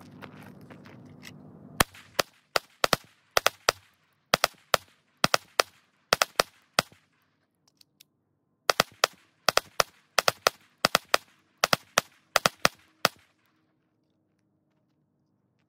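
Glock 44 .22 LR pistol fired in rapid succession: two quick strings of sharp shots, about three a second, with a pause of roughly two seconds between them.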